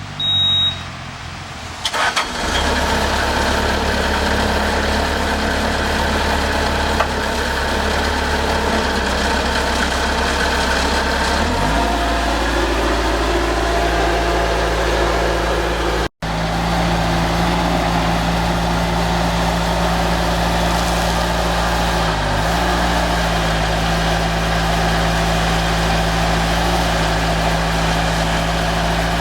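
Bobcat 763G skid steer's Kubota four-cylinder diesel starting up about two seconds in and idling steadily, then throttled up to a higher steady engine speed about twelve seconds in.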